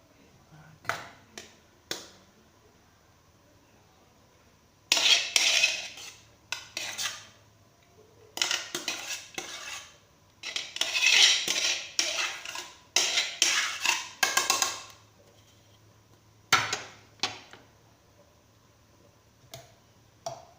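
A spoon scraping and knocking against a cooking pot as cooked rice is scooped out and laid in as a second layer. It comes in a few sharp taps, then three longer runs of scraping and clatter, then a few more taps.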